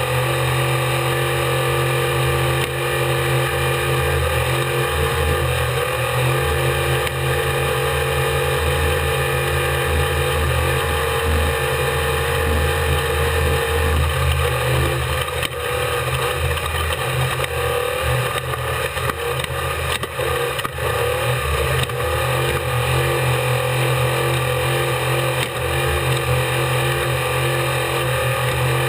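Off-road race vehicle's engine running steadily under load at racing speed, with a few brief knocks about halfway through.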